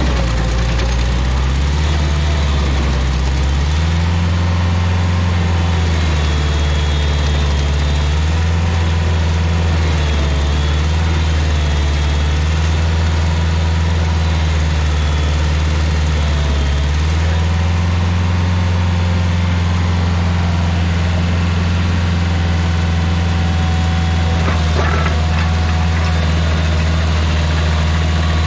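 Stump grinder's engine running steadily at high speed, its note shifting slightly a few times as the load changes.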